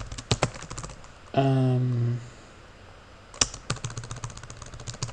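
Typing on a computer keyboard: irregular keystrokes, easing off for about a second past the middle, then resuming. About a second and a half in, a short hummed "mm" in a person's voice.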